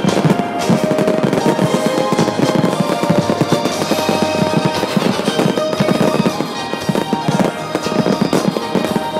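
A fireworks display going off: dense, rapid crackling and popping from many shells and fountains at once, with music playing steadily underneath.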